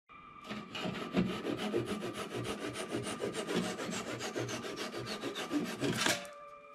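A tool scraping rapidly and rhythmically on wood, about seven strokes a second, stopping abruptly near the end.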